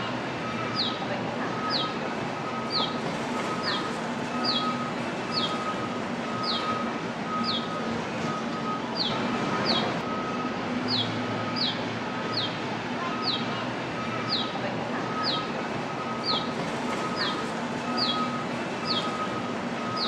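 A bird repeating a short, high, downward-slurred chirp about twice a second, with a brief break midway, over a steady background hum.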